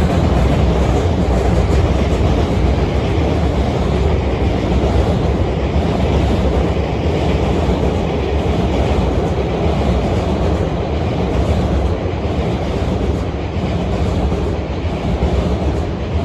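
Freight train passing, a steady rumble of wagon wheels on the rails that eases slightly near the end.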